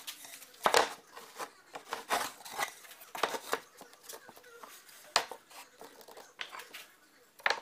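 Plywood boards being handled on a workbench: scattered knocks as the boards are set down and shifted, with wood scraping and sliding on wood between them.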